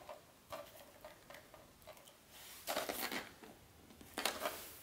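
Quiet handling noise from a rifle being checked over by hand: a few light clicks in the first two seconds, then two brief scraping rustles about three and four seconds in.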